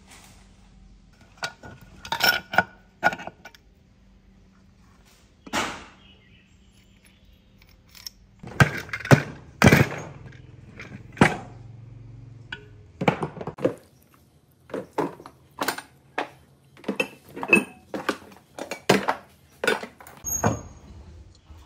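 Metal motorcycle engine parts (gears, shafts and crankcase pieces) clinking and knocking together as they are handled and set down: a run of separate knocks and clinks, with a louder cluster about nine to eleven seconds in.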